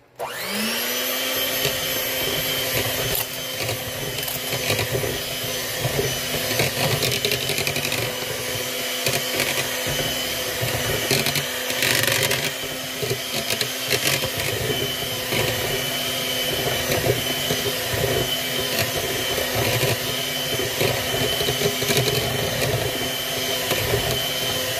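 Electric hand mixer switched on, its motor whine rising quickly as it spins up, then running steadily as the beaters mix sugar and vanilla into creamed butter and eggs for cake batter.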